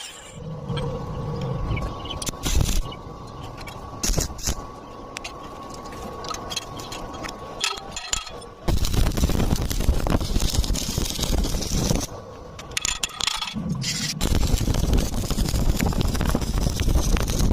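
Stick welding arc crackling and sputtering, full of sharp pops. It gets louder about halfway through, breaks off briefly, then starts again.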